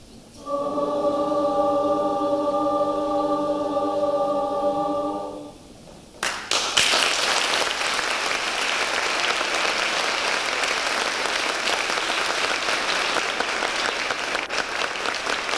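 Mixed youth choir holding a final chord for about five seconds until it dies away. About a second later audience applause breaks out and keeps going.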